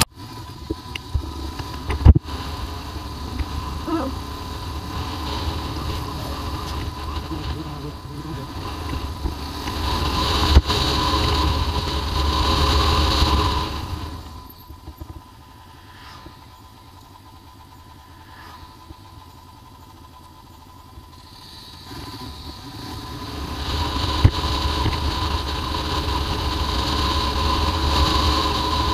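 Royal Enfield Himalayan's single-cylinder engine running while under way, mixed with wind noise on the camera's microphone. It swells toward the middle, falls much quieter for several seconds past halfway, then builds again; a sharp click comes about two seconds in.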